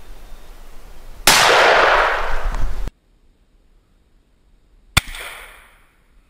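Two shotgun blasts. The first, about a second in, rings on loudly and then cuts off abruptly. The second, near the end, is a sharp crack with an echo fading over about a second.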